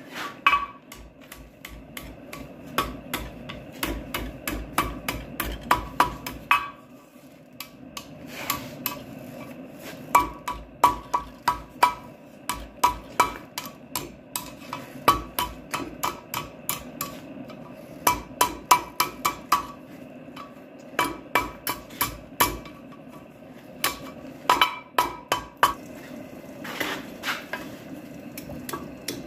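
Blacksmith's hammer striking hot steel on an anvil while forging the loop end of a coal rake: runs of ringing blows about three a second, broken by short pauses.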